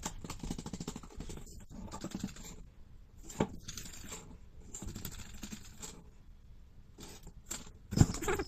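Crinkly rustling and scratching in spurts from a kitten's play with a crinkle cat teaser (kashakasha toy) and a cardboard box, with one sharp knock near the end.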